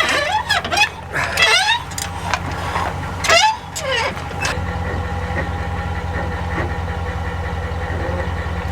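A truck engine idling steadily, with a low, even hum throughout. Brief voices or chirps are heard over it in the first half.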